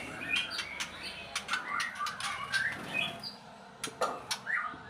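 Caged white-rumped shamas making short chirps, with many sharp clicks and wing flaps scattered among them.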